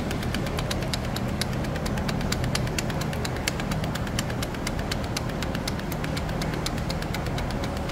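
Rapid metallic ticking, several clicks a second, from the 2017 Toyota SW4's factory bottle jack being shaken by hand. Its loose parts knock through their play, which the mechanics believe is the source of the rear interior tic-tic rattle.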